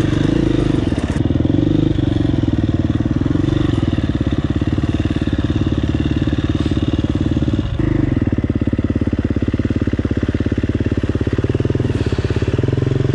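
Dirt bike engine running close to the microphone at low revs, with the pitch rising and falling a little. About eight seconds in, the sound cuts abruptly to a steady low-speed putter with an even, rapid pulse.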